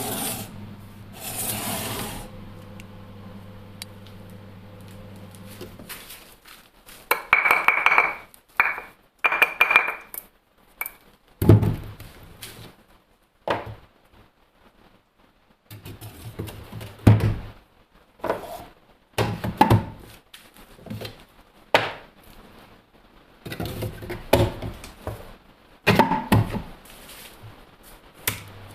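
Hard objects being handled and set down: a run of knocks, thunks and clinks, with a short ringing tone about eight to ten seconds in. A steady low hum stops about six seconds in.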